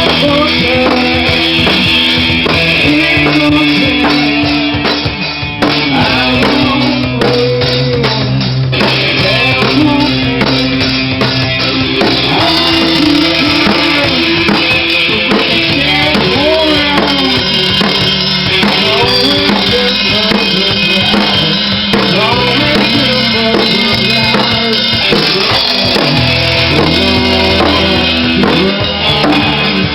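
A rock band playing live, with a drum kit keeping a steady beat under sustained pitched instruments that bend in pitch.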